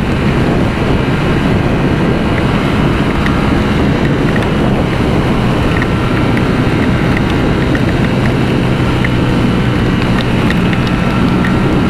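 Ducati V4 motorcycle riding at a steady speed in heavy rain: an even engine note under loud wind noise on the microphone and the wash of water.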